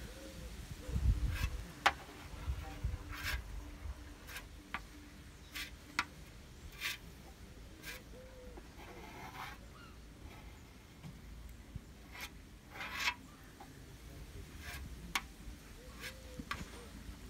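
Plastic spreader scraping body filler across a painted panel: a series of short, irregular scraping strokes and clicks, a few of them drawn out over a fraction of a second.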